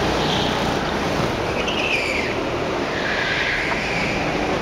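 Go-kart engines racing around the track, their pitch rising and falling as the karts pass and drive away.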